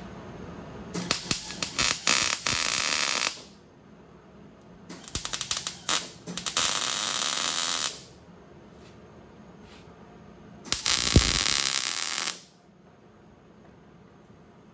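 Hobart 140 MIG welder on 110 V striking three short tack welds, each two to three seconds of crackling, sizzling arc that starts with a few sputtering pops.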